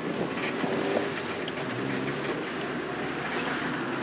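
A 1995 Honda Civic's four-cylinder engine idling steadily just after a quick start on a new starter motor.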